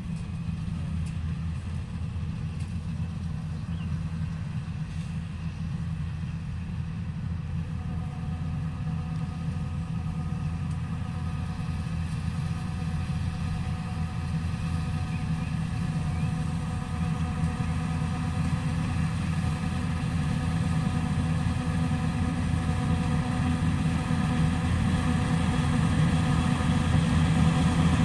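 Yanmar AW70 rice combine harvester's diesel engine and machinery running steadily as it harvests, growing gradually louder as the machine comes closer.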